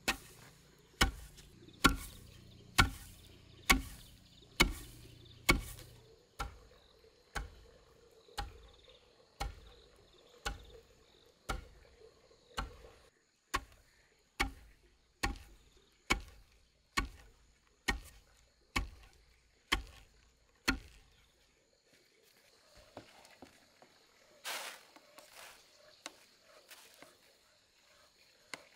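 A long wooden pestle pounds rice grain in a hollowed-log wooden mortar, with a steady thud about once a second. After about twenty strokes the pounding stops, and softer rustling of grain follows near the end as the mortar is tipped out.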